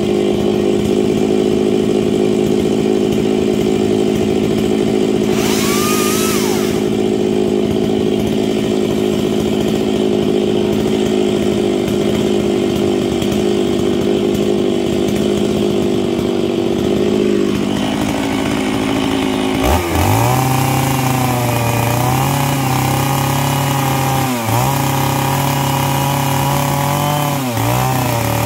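Stihl MS 660 two-stroke chainsaw idling steadily. About 20 seconds in it is throttled up to full speed and cuts into a paulownia block, its pitch dipping a few times as the chain bites into the wood.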